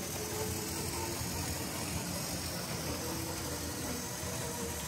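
Tri-ang Hornby 00 gauge Britannia-type steam locomotive, driven by a motor in its tender, running steadily with a train of ferry wagons: an even hum of the small electric motor and the wheels rolling on the track.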